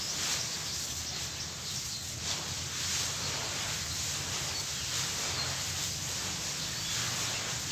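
Hands crumbling and raking through dry, gritty grey dust, a continuous crunching rustle that swells and eases again and again as the clumps are squeezed and broken.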